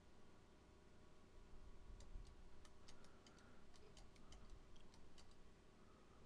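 Faint, irregular computer mouse clicks, starting about two seconds in, over near-silent room tone.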